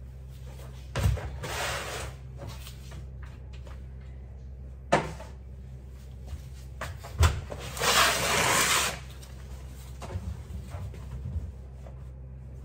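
Laundry being handled: a few sharp knocks, the loudest about seven seconds in, and a rustle of about a second as clothes and a plastic laundry basket are moved around a front-loading washing machine, over a steady low hum.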